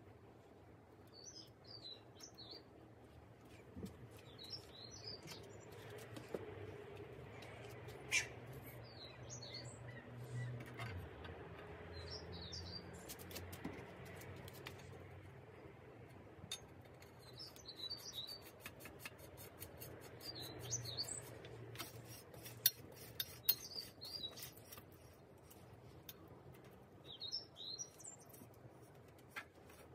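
Small birds chirping in short phrases every few seconds, with scattered light metallic clicks and taps as bicycle headset parts and the fork are fitted into the frame's head tube. The clicks are loudest about 8 seconds in and again around 22 to 24 seconds.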